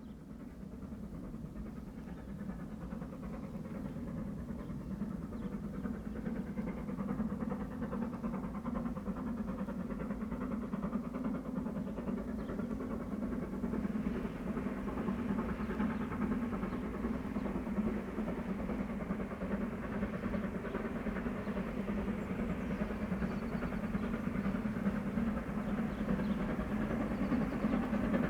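Steam train approaching on the rails, its steady rumble growing gradually louder.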